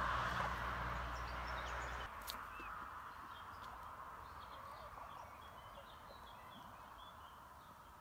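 Low engine hum and rushing noise of a passing vehicle, fading out over the first two seconds. After that come faint, short, high bird chirps scattered through the rest.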